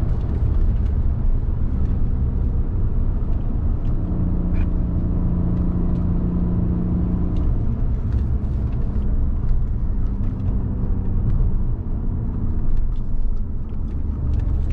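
Cabin sound of an Audi A6 C6 3.2 FSI quattro driving on track: the V6 engine running over a deep road and tyre rumble. The engine note holds steady for a few seconds partway through.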